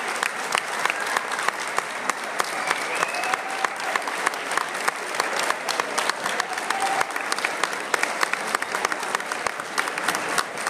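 Audience applauding, many hands clapping at once in a dense, steady patter, with scattered voices in the crowd.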